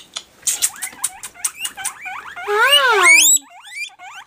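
Guinea pigs squeaking in their cage: quick clicks and short chirping squeaks at first, then a louder call that rises and falls, with sharp upward squeaks about two-thirds of the way in.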